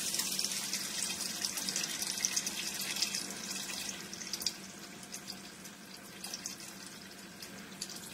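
Chicken broth pouring in a steady stream into a hot stainless steel pot of browned sausage, onion and garlic, splashing with many small crackles. The sound is loudest for about the first four seconds, then grows quieter as the pot fills.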